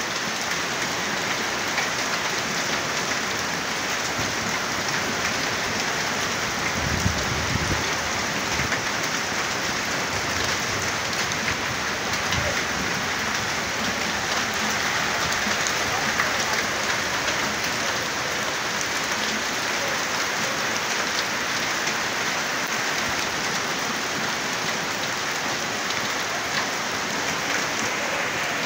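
Hailstorm: small hailstones and rain falling steadily, a dense hiss dotted with fine ticks of stones striking.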